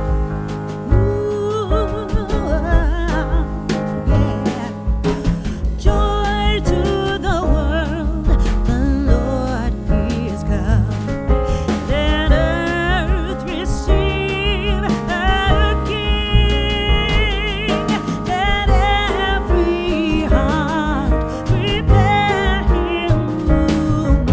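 Background music: a song with a singing voice over instrumental accompaniment and a steady beat.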